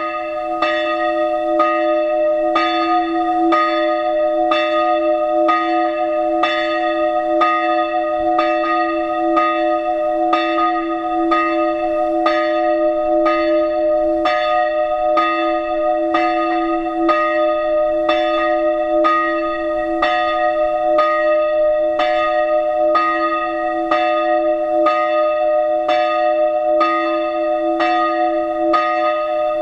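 Church bells of the Protestant congregation ringing, strikes following evenly at just under two a second over a continuous ringing hum.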